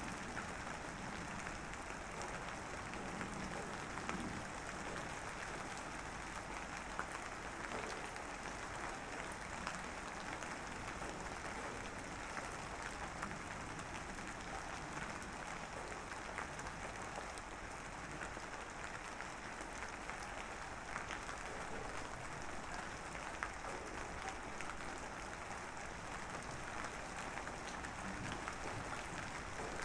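Steady drizzling rain: a dense, even patter of small drops, with a few slightly louder single drops now and then.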